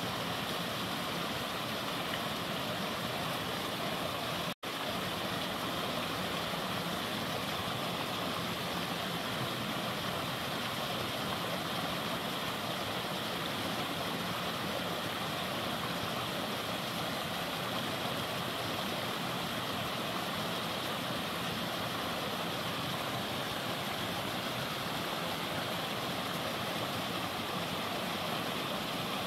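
Steady rush of a mountain creek's flowing water, an even hiss with no breaks except one momentary dropout about four and a half seconds in.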